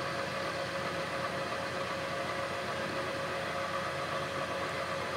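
Chester Cub 630 centre lathe running steadily under power with its three-jaw chuck spinning, a constant whine over the motor and gear noise, while the tool takes a careful facing cut.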